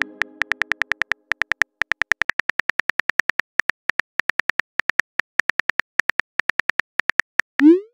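Phone on-screen keyboard clicks as a message is typed: a rapid run of short taps, several a second. A message tone rings out in the first second, and a short rising swoosh comes near the end as the message is sent.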